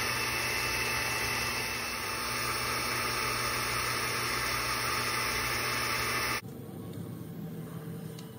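xTool D1 Pro diode laser engraver running as it cuts plywood: a steady hiss and whir from its fans and air assist, with a few steady hum tones. About six seconds in it cuts off abruptly to much quieter room sound with faint handling of wooden pieces.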